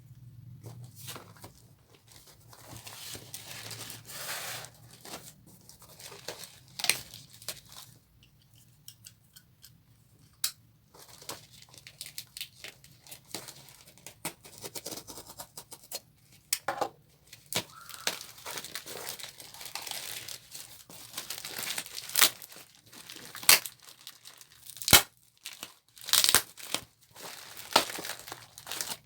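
A package being unwrapped by hand: packaging tearing and crinkling in irregular bursts, with sharp snaps that grow louder in the second half.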